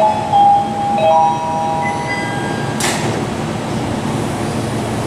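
Airport people-mover station doors closing: a chime of stepped electronic tones sounds for about the first second and a half, then a short sharp hiss comes about three seconds in as the sliding platform and car doors shut, over a steady hum.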